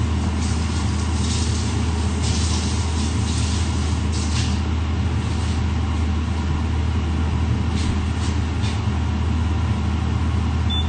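Wok of stir-fried vegetables and shrimp simmering in freshly added broth, a steady hiss over a constant low hum.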